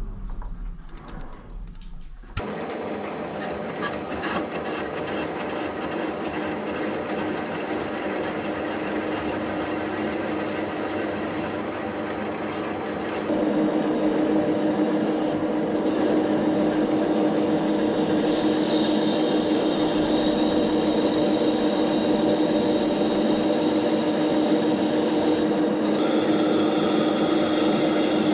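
Lathe running steadily with a constant humming tone as it turns a workpiece. The machine sound starts abruptly about two seconds in, steps up louder about halfway through and changes character again near the end.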